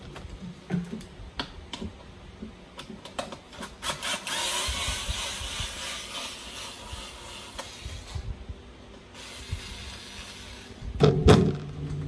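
A cheap handheld power screwdriver whirring with a gritty gear noise for about four seconds from a few seconds in, then again more faintly, amid light clicks of screws and metal parts. A louder knock comes near the end.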